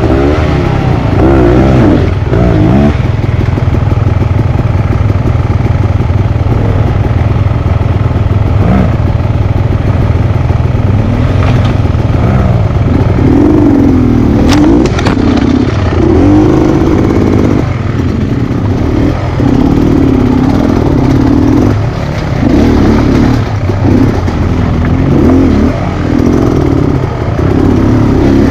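Off-road dirt bike engine revving. The throttle is worked more steadily at first, then snapped open and shut in repeated short bursts from about halfway on, with a sharp knock about 14 seconds in.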